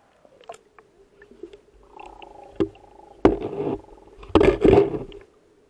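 Muffled sound picked up by an action camera held under river water: a low steady hum with scattered clicks, and two loud rushes of noise about three and a half and four and a half seconds in.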